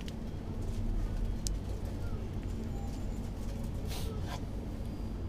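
Supermarket background: a steady low hum with scattered light clicks, and a brief cluster of clicks and rustling about four seconds in.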